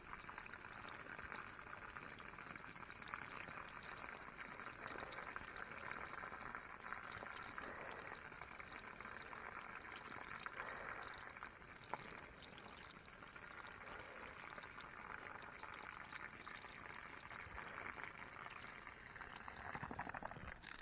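A thin stream of water falling and splashing steadily onto wet grass, faint, with a single small click about halfway through.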